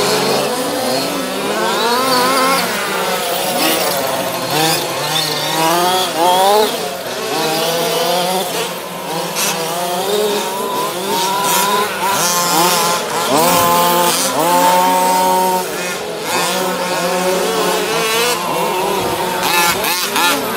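Several radio-controlled cars racing round a dirt track, their small buzzing engines revving up and down over and over as they accelerate and brake, several overlapping at once.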